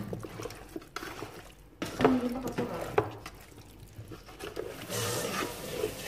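A hand squishing and tossing raw chicken with potato and carrot chunks in a steel pot: wet squelching, with sharp knocks of food against the pot about two and three seconds in.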